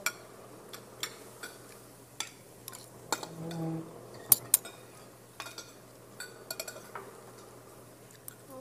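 Spoons and forks clinking and scraping against dishes as people eat, in scattered sharp clicks with a couple of louder clinks about four and a half seconds in. A brief murmured voice comes about three seconds in.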